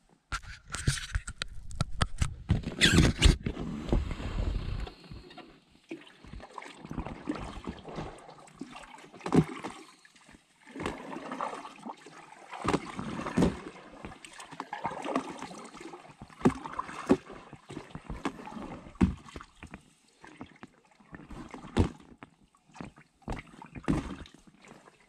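Kayak paddling heard from inside the cockpit: a double-bladed paddle dipping and pulling through the water with splashes and drips, a stroke every second or two, with the odd knock on the hull. The first few seconds hold loud rumbling and knocks.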